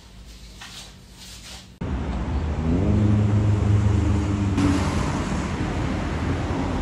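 Street traffic: a quiet room gives way suddenly, about two seconds in, to road noise and a motor vehicle's engine running close by, its pitch rising as it pulls away.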